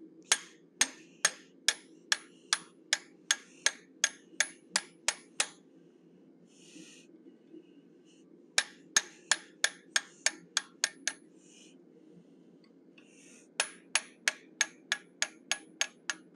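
Hand hammer striking a round eye punch into a red-hot steel bear head: crisp, ringing metallic blows, about two or three a second. They come in three runs, the first of about fourteen blows, then two shorter runs after brief pauses.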